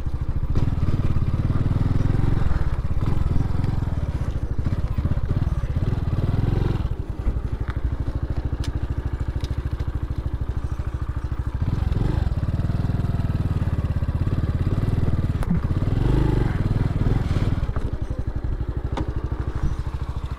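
Honda Pop 110i's small single-cylinder four-stroke engine running at low speed, with a steady rapid pulse.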